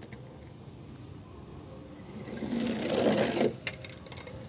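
Small toy car rolling fast down a plastic playground slide, its wheels making a rattling whirr that grows louder for about a second and a half and cuts off suddenly as it leaves the slide, followed by a short click.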